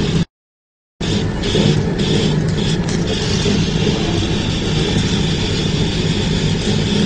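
A machine running with a steady, dense noise, cut off briefly by a gap of silence just under a second in; a higher steady whine joins about three seconds in and holds.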